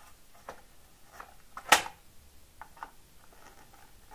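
Light clicks and rustles of a short piece of wire being handled and fitted to a switch terminal on a plastic switchboard, with one sharp click about a second and a half in.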